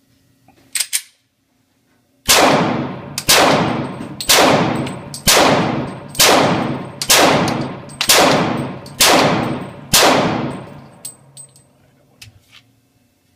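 A string of about nine single gunshots, one roughly every second, each ringing out before the next. A short click comes just before them.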